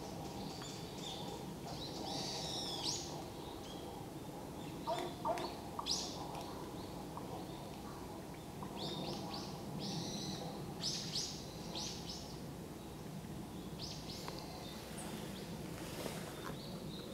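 Large-billed crow giving a string of strange, short calls: clusters of high notes every few seconds, with the loudest, a few lower notes, about five seconds in, over a steady background hum.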